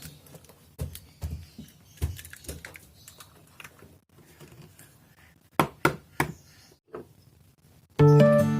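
Scattered light knocks and clicks of kitchen utensils and bowls being handled, a few at a time, with a quiet stretch in the middle. Strummed acoustic guitar music comes in near the end.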